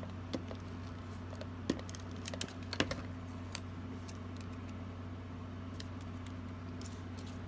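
Light clicks and taps of cardstock and paper being handled and pressed down on a tabletop as a small sentiment panel is fixed onto a handmade card, with a cluster of taps a couple of seconds in. A steady low hum runs underneath.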